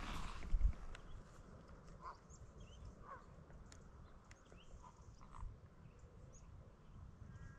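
A few footsteps at the start, then scattered bird calls: several short, mid-pitched calls and many brief high chirps.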